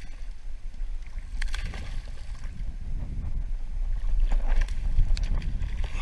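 Wind rumbling on the microphone over the water noise of a small fishing boat, with a few light knocks about a second and a half in and again near the end.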